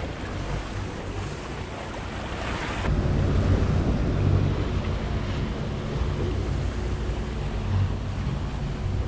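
Wind buffeting the microphone and water rushing along the hull of a sailing yacht under way, with a low steady rumble beneath. The sound changes abruptly about three seconds in.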